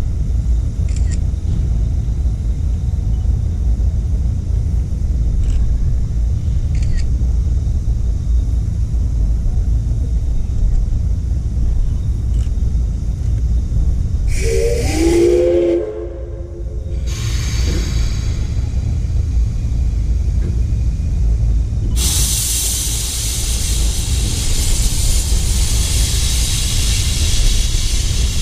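Steam locomotive whistle blown once about halfway through, a chord of several tones lasting about a second and a half. From about two-thirds of the way through, a steady loud hiss of steam, over a constant low rumble.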